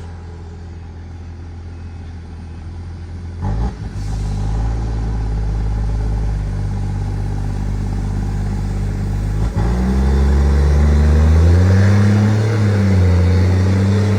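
Nissan Patrol's engine running at a low, steady idle, with a couple of short knocks about three and a half seconds in, then revving up from about ten seconds in, its pitch climbing, dipping briefly and climbing again.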